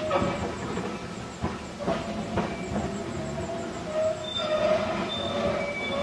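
Electric tram running along its track, wheels squealing with wavering high tones that grow stronger in the second half, over a steady rumble. A few sharp clicks from the wheels passing over rail joints come about two seconds in.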